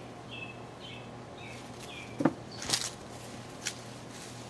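A bird repeating a short falling chirp about twice a second. A little past halfway come a sharp knock, a brief rustle and a click, the loudest sounds here, from hands digging potatoes out of the soil.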